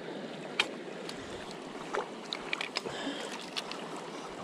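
Shallow river water running in a steady rush, with a few short, sharp clicks and knocks on top, the loudest about half a second in.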